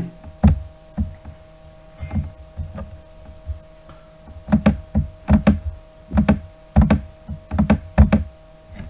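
Irregular knocks and clicks at a computer desk as a mouse is clicked and handled, some in quick pairs, louder and more frequent in the second half. A faint steady electrical hum runs underneath.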